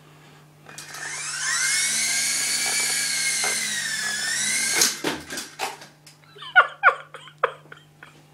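Syma S032G model helicopter's electric motor and rotor spinning up with a rising whine, then running steady for about three seconds. It stops suddenly with a knock, followed by a string of sharp clicks and knocks.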